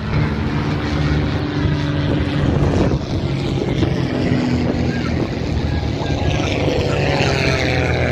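Piston-engine propeller aircraft running with a steady engine note, and a second engine tone falling in pitch near the end.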